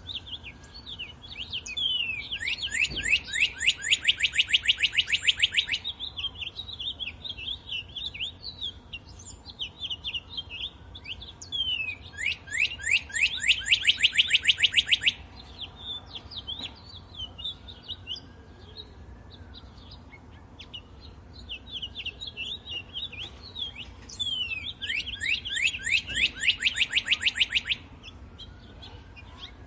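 Woodland birds singing: three times, about ten seconds apart, one bird gives a loud, rapid trill of quickly repeated falling notes lasting about three seconds. Scattered shorter chirps from other birds fill the gaps.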